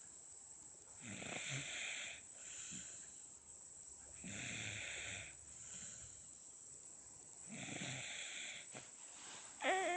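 Seven-month-old baby snoring in her sleep: three snoring breaths about three seconds apart, each followed by a fainter one, at an ordinary level and not especially loud. Near the end comes a short, louder pitched sound that wavers, like a small voice.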